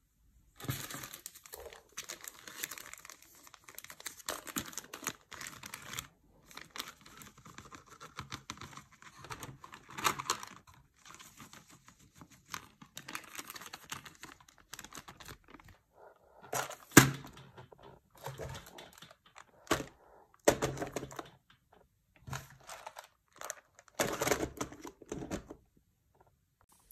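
Thin clear plastic bags crinkling and rustling as small resin charms are tipped out and sorted into a clear plastic compartment organiser, with light clicks and clatter of charms on plastic. A single sharp knock stands out about two thirds of the way through.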